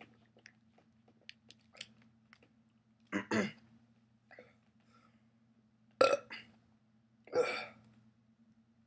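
A man burping three times, about three, six and seven and a half seconds in, with faint mouth clicks between.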